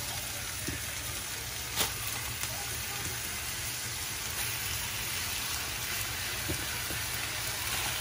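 Seasoned beef steaks sizzling in oil on a hot comal lined with aluminium foil as the pieces are laid down, a steady sizzle with one sharp click about two seconds in.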